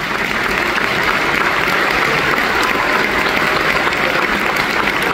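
A full theatre audience applauding: dense, steady clapping that holds at one level throughout.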